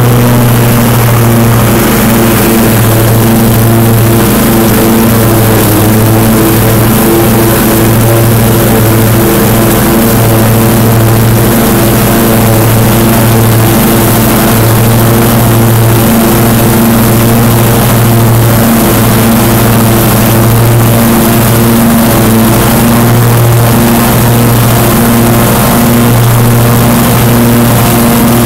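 Husqvarna riding mower's engine running steadily under load while its blades cut foot-long grass, a loud, even drone with brief small dips.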